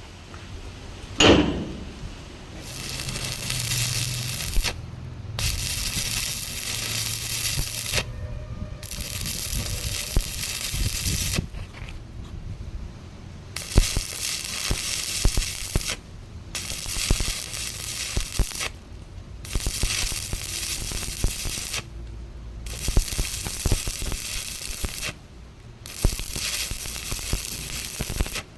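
Electric arc welding: the arc crackles and sizzles in runs of two to three seconds, broken by short pauses, about eight runs in all. A single ringing metal clang comes about a second in.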